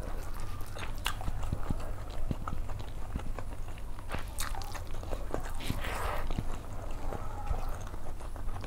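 Close-miked chewing of a mouthful of rice, with wet mouth clicks and lip smacks scattered through it, over a steady low hum. Fingers mix rice on a steel plate at the same time.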